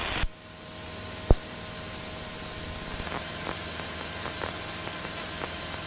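Cabin noise of a Cessna 172 in cruise: the piston engine and propeller's steady drone under a hiss of airflow. A single short click comes about a second in.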